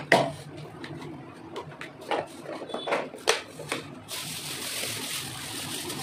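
Clear plastic storage box lid being set on and pressed shut: a series of hollow plastic clicks and knocks, the sharpest right at the start. About four seconds in, a steady hiss starts and holds.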